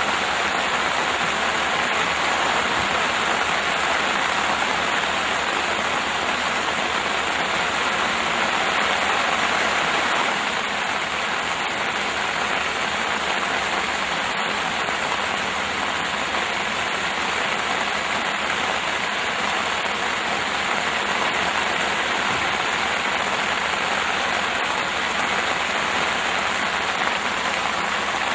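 Steady rain falling hard, a dense even hiss with no breaks, easing slightly about ten seconds in.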